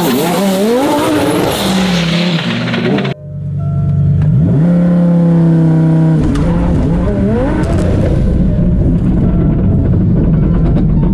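Twin-turbo Audi R8's V10 engine at full throttle on a drag-strip pass, its pitch climbing and then dropping back at each gear shift. It is heard first from behind the car at the launch, then from about three seconds in from inside the cabin, with a heavier low rumble.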